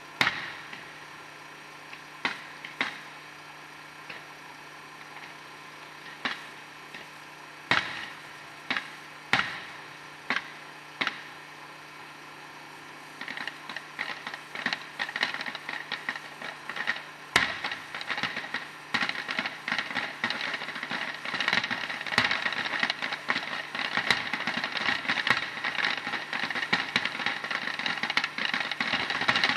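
Fireworks going off: a few separate sharp pops, then from about halfway through a dense, continuous crackle of many small bangs. A steady low hum runs underneath.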